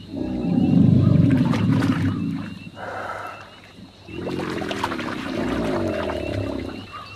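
American alligators bellowing to advertise for mates in the breeding season: two long, deep bellows, the second starting about four seconds in.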